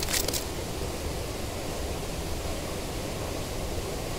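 Steady rush of a flowing stream. A brief clatter of clicks right at the start, the landed fish flapping on the pebbles.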